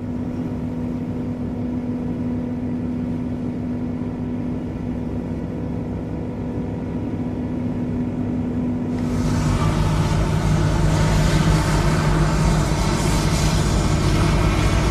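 Diesel engines of a forage harvester and its accompanying tractor running steadily, a continuous hum that grows louder and fuller about nine seconds in.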